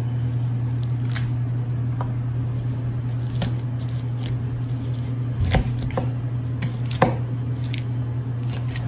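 A chef knife cutting the thigh and leg off a roasted duck on a wooden board: soft cutting and handling sounds with scattered clicks, a knock about five and a half seconds in and a sharp click about a second later, over a steady low hum.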